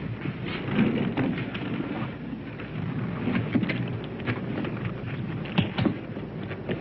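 Continuous low rumble of distant artillery shelling, with scattered short clicks and knocks.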